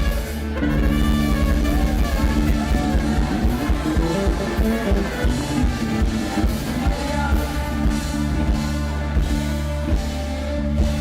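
Live band music: a full band playing a continuous passage, with sustained low notes under moving melodic lines.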